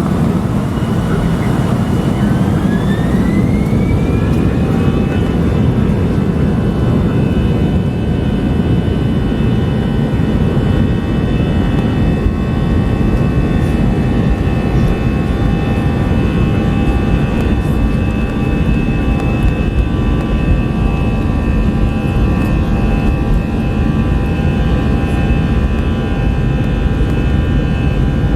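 Airbus A321-211's twin CFM56 turbofans heard from inside the cabin, spooling up to takeoff thrust with a rising whine over the first few seconds. They then hold a steady whine over a heavy rumble during the takeoff run.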